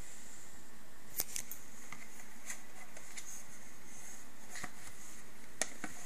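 A few sharp plastic clicks and taps as a small plastic digital clock is handled and turned over in the hand, over a steady hiss.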